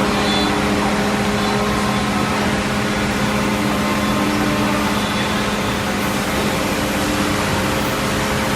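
Woodworking machinery running with a steady hum: a low drone with several fainter steady tones above it and an even noise beneath, unchanging throughout, with no separate drilling strikes or knocks.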